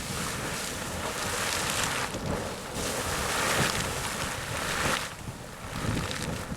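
Sawmill Geyser, a fountain-type geyser, erupting: water splashing in overlapping bursts, a rushing noise that swells and fades, with wind buffeting the microphone.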